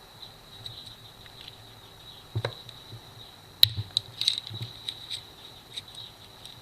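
Scattered light clicks and taps of small hard objects being handled, with a dull knock about two and a half seconds in and the loudest, sharpest click about a second later, over a faint steady high-pitched tone.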